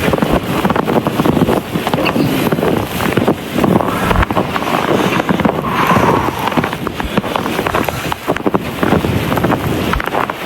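Wind buffeting the microphone: a loud, continuous rushing noise with irregular gusts.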